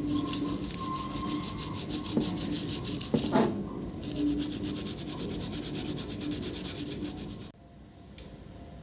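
Fast, rhythmic rubbing or scrubbing strokes, many to the second, in two bouts with a short break about three seconds in, stopping abruptly about seven and a half seconds in.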